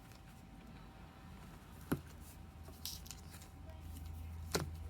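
Quiet handling of trading-card packs and cards: two sharp taps about two and a half seconds apart with faint rustling between them, over a low steady hum that comes in about two seconds in.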